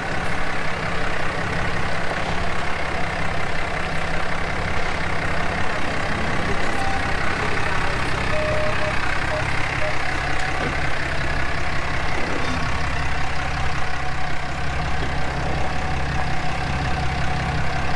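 Ram pickup truck's engine idling steadily while the truck is eased backward slowly under a slide-in truck camper.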